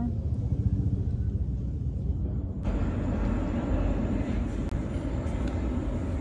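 Steady low outdoor rumble with no speech. About two and a half seconds in, the sound changes abruptly and a brighter hiss joins the rumble.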